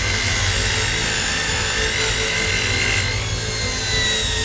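Electric sander running steadily against a wooden gun stock, a dense abrasive hiss over the motor's whine. About three seconds in, the whine begins to sink slightly in pitch.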